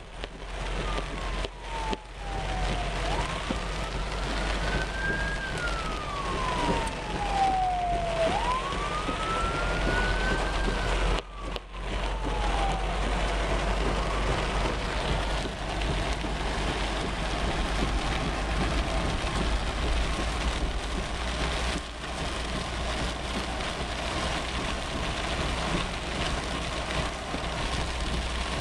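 An emergency-vehicle siren in a slow wail, its pitch sweeping down and up about every five seconds, fading out about fourteen seconds in. Under it, a steady hiss of heavy rain and a car driving on wet, flooded streets, with a low engine rumble, heard from inside the car.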